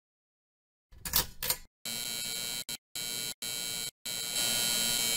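Electrical buzz of a neon sign sound effect flickering on: after a few faint crackles the buzz starts, cuts out briefly about four times, then holds steady and a little louder.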